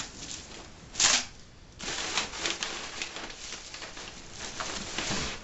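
Packing paper rustling and crinkling as hands dig through a cardboard box, with a short, louder crackle about a second in and steady rustling after it.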